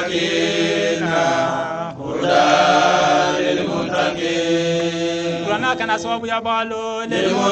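A man's voice chanting Quranic verses in long, melodic held notes, with short breaths about two and four seconds in.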